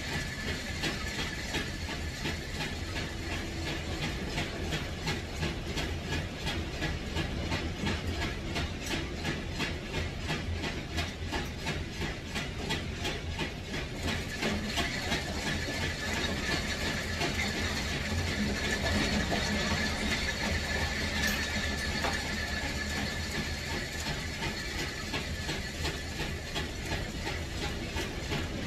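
A machine running steadily, with a rapid, even clatter and a steady high whine.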